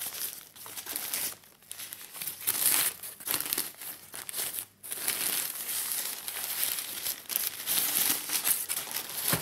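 White protective wrapping sheet crinkling and rustling in irregular bursts as it is pulled open and peeled off a camera body by hand, with a brief pause about halfway.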